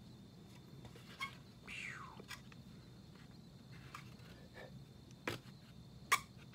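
A spoon scooping salsa out of a glass jar and into a bowl: a few sharp clinks and taps, the loudest near the end, with a short falling squeak about two seconds in.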